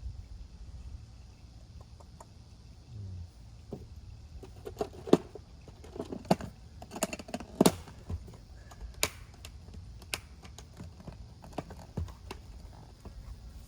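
Irregular light clicks and knocks of small objects being handled, bunched in the middle, over a low steady hum.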